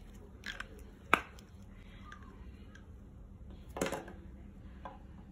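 A few sharp clinks and knocks of a spatula against a stainless steel mixing bowl: the loudest about a second in, and a short cluster near the four-second mark.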